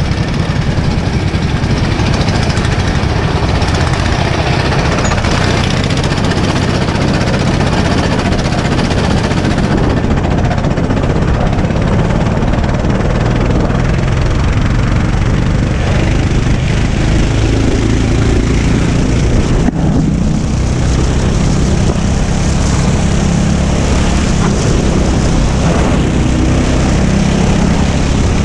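Racing go-kart engine running hard at speed, heard from onboard, its note shifting up and down through the corners, with a hiss of wind across the microphone. The sound dips briefly about twenty seconds in.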